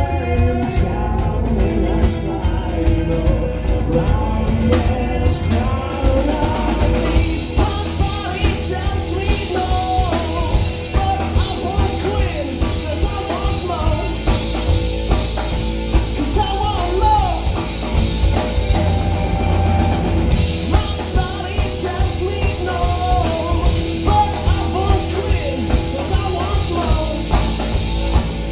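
Live rock band playing: a male lead voice singing over electric bass, electric guitar and a drum kit with a steady beat.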